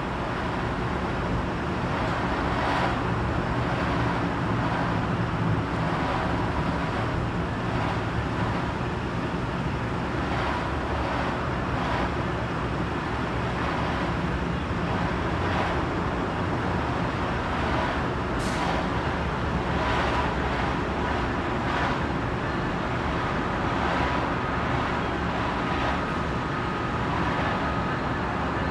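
Steady rumble of road traffic and engines, with no sudden events and a faint high tone near the end.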